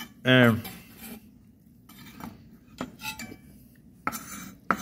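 Several light clinks and knocks of kitchen utensils, a knife and metal pan against a wooden cutting board, spaced irregularly over a few seconds.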